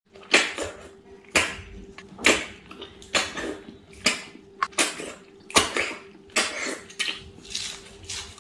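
Sharp sucking slurps, about one a second, as snails in curry are sucked out of their shells by mouth. A faint steady hum runs underneath.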